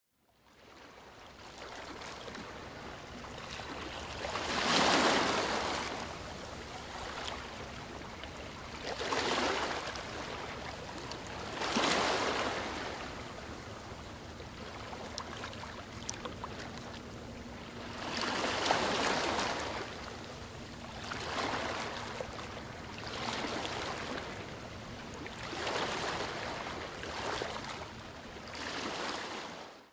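Gentle sea waves washing onto a shore: about eight swells, each building and fading, with a steady wash of water between them. The sound fades in at the start.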